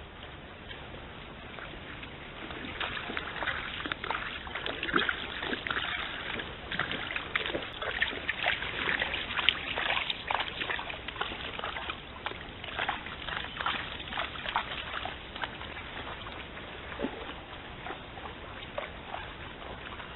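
Red deer hinds wading at the edge of a stream, hooves splashing and sloshing in shallow water in an irregular run of short splashes. The splashes begin a couple of seconds in, are thickest about halfway through and die away well before the end, over a steady background hiss.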